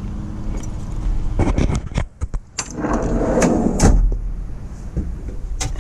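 Steady low hum of an idling vehicle engine, under a run of sharp knocks, clicks and rattles, like a door or latch being worked, most of them between about one and a half and four seconds in.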